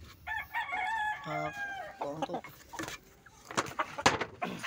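A rooster crows once, a long call in the first two seconds, followed by a few sharp knocks near the end.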